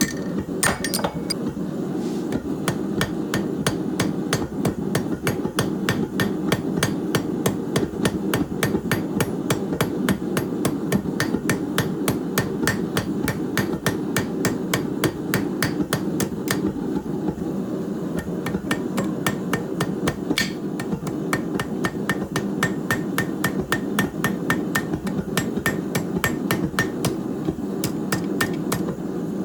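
Hand hammer striking hot steel on an anvil, forging an old concrete chisel into a corkscrew: a steady run of sharp metallic blows about three a second. A steady low rumble runs underneath.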